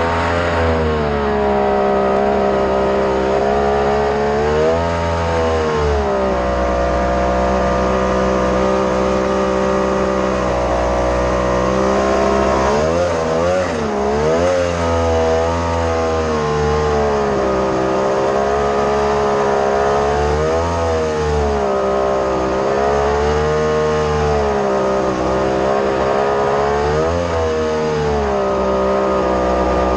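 Mini jet boat's engine running hard, its pitch dipping and climbing back several times as the throttle is eased and reopened, with the deepest dip and surge about halfway through.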